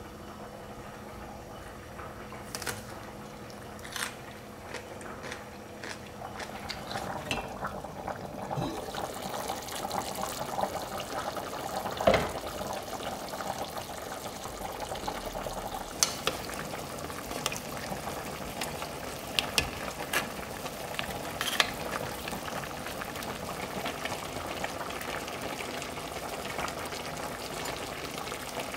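Braised beef short ribs (galbi-jjim) bubbling in broth in an enamelled cast-iron pot, boiling on high heat to reduce the broth. The bubbling gets louder about a third of the way in, with a few sharp clicks scattered through it, the loudest near the middle.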